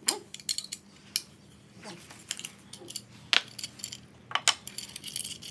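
Light metal clicks and clinks from handling a sliding-door guide fitting and small metal hardware, with sharper knocks about three and a half and four and a half seconds in.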